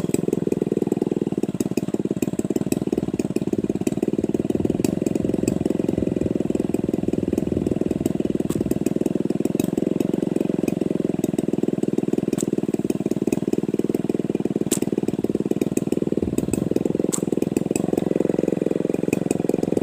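Two-stroke chainsaw engine running steadily and without a break.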